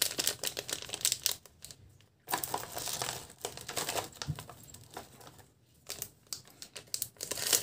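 A clear plastic bag crinkling in the hands as a toy mouse inside it is handled, in irregular crackles with two short pauses.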